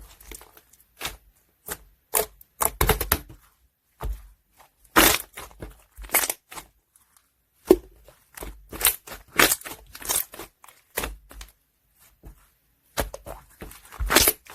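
Sky-blue opaque slime being squeezed and worked by hand: an irregular run of short crackles and pops, with a few longer, louder stretches and brief pauses between.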